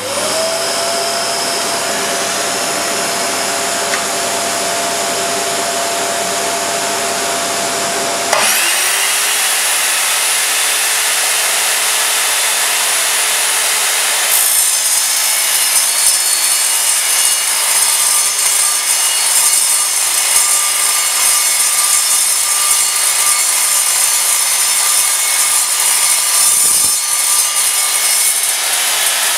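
Evolution R210SMS sliding mitre saw with its multi-material blade cutting through thick steel flat bar. The motor whines steadily at full speed, then about eight seconds in the blade bites into the steel: the whine drops under load and a harsh, continuous cutting noise takes over, growing louder and brighter about fourteen seconds in as the cut deepens.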